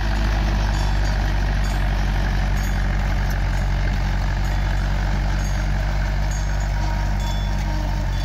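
Tractor engine running steadily under load while it pulls and drives a manure spreader whose beaters are throwing out manure.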